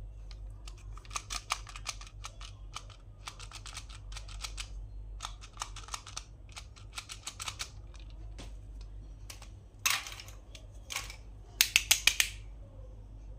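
Clusters of rapid small clicks and crinkles from plastic toy packaging being handled and opened. A louder scrape comes about ten seconds in, and a quick run of loud clicks near the end.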